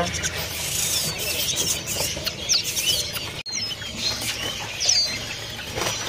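Caged songbirds chirping: many short, high, falling chirps at irregular moments over steady background noise. The sound drops out for an instant about three and a half seconds in.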